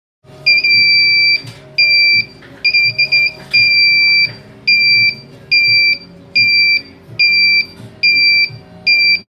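Electronic alarm buzzer sounding a single loud, high-pitched tone in on-off beeps. The first few beeps are uneven in length, one stuttering; after that they come evenly, a little faster than one a second.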